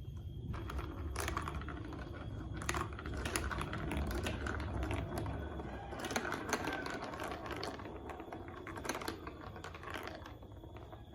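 Marble run building-block toy clicking and clattering: quick, irregular taps of small hard plastic pieces, thinning out near the end.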